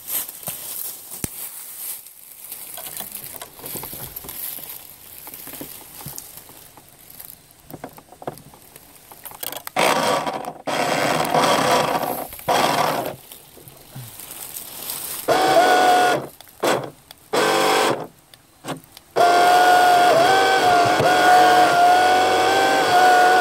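Faint crackling at first, then the small electric motor of a toy RC boat whining in short throttle bursts a few seconds apart. Near the end it runs steadily at one high pitch.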